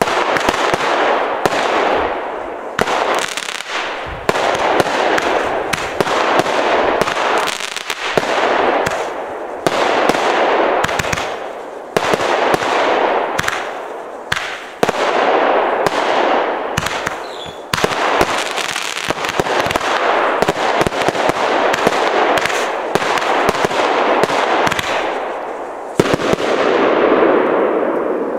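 Consumer firework cake firing continuously: a fresh burst of bangs about every two seconds, each trailing off into dense crackling and hiss. The last burst near the end fades away slowly.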